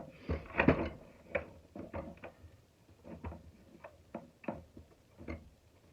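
Irregular light clicks and taps of small metal parts and a tool being handled while a shop vacuum's motor is taken apart, with a sharper knock just under a second in.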